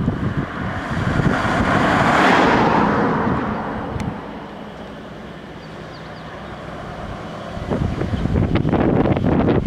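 A car passing close by on an asphalt road, its tyre and engine noise swelling to a peak about two seconds in and then fading. Near the end, wind rumbles on the microphone.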